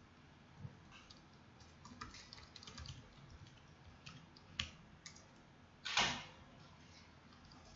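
Computer keyboard typing: a scatter of light key clicks, with one loud clack about six seconds in.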